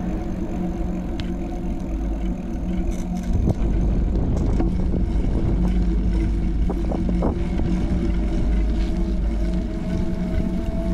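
A motor vehicle's engine running steadily with a constant low hum, growing louder about three and a half seconds in, with a few light ticks near the middle.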